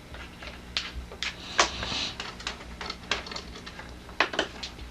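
Irregular light clicks and taps from pet birds climbing on their cage, feet and beaks striking the cage, with a short hiss about two seconds in.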